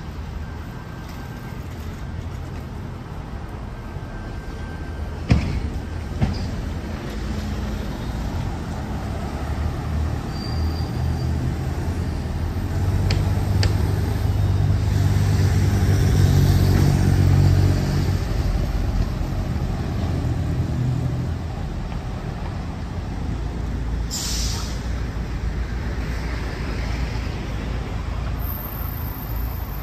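Street traffic with a car driving past about halfway through, its engine and tyres swelling and then fading. Two sharp knocks come about five seconds in, and a short hiss comes about six seconds before the end.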